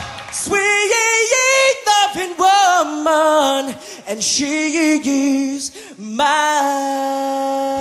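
All-male a cappella group singing with no instruments: a lead tenor sings a soulful line with vibrato while the bass and vocal percussion drop out, then about six seconds in several voices join on a sustained chord.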